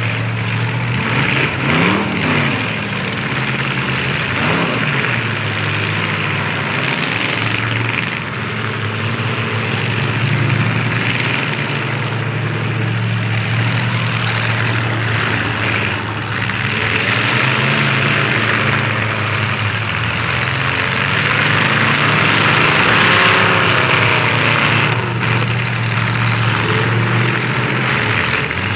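Several full-size demolition derby cars running together, engines revving up and down over a steady low engine hum as they ram and push each other in mud, with a few sharp crash knocks.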